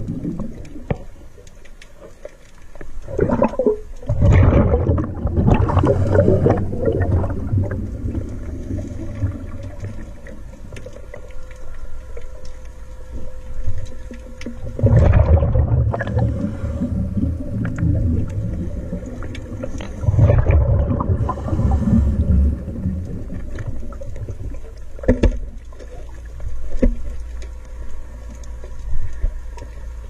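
Scuba diver's exhaled bubbles gurgling and rumbling past the camera underwater, in long bursts several seconds apart, over a steady faint hum.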